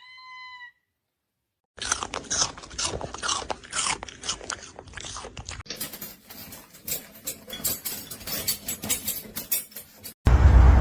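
A brief high call, then a pet chewing and crunching on something hard, with rapid irregular crunches for about eight seconds. Near the end it cuts off abruptly.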